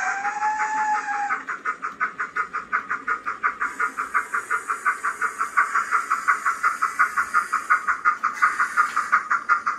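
Sampled steam sound from a DCC sound decoder in a model BR Standard Class 9F locomotive: a short steam whistle, then rapid, even exhaust chuffs that grow louder, with a hiss over them from about four seconds in.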